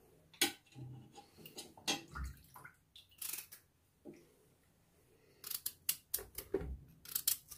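A small knife cutting through a raw white radish, with chunks being set down on a plate: a few scattered clicks and taps, then a quick run of crisp cuts near the end.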